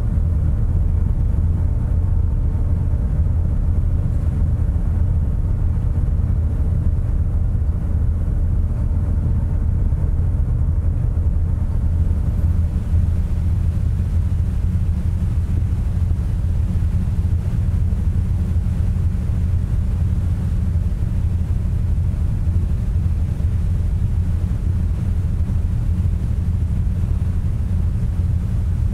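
Steady low rumble of the Tarumizu car ferry's engines, heard on deck while under way. Faint humming tones above the rumble fade out about twelve seconds in.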